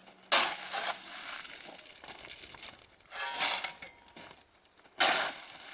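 Three crunching scrapes of track ballast stones, about two and a half seconds apart, as a shovel digs into and tips railway ballast.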